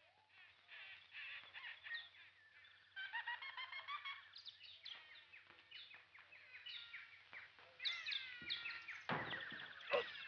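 Jungle birds calling: many short chirps, trills and whistles that slide up or down in pitch, overlapping, growing busier and louder near the end.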